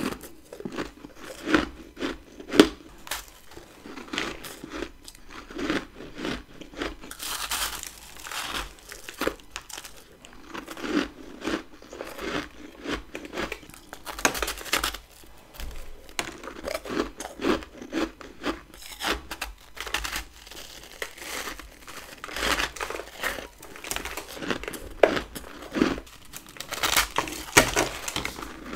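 Close-up biting and crunching of humidifier frost built up in a deep freezer: a dense, irregular run of crisp crunches from the frosty ice.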